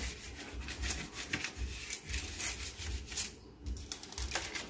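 Pastry brush swept quickly back and forth over parchment paper on a metal baking sheet, a rapid run of dry, scratchy brushing strokes that thins out after about three seconds.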